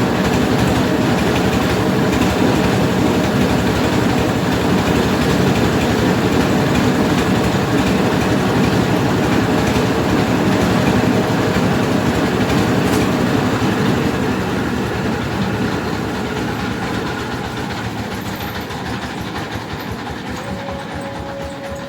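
Mobile rice-milling machine running: a heavy engine with a fast, even mechanical clatter. It fades away gradually over the last several seconds.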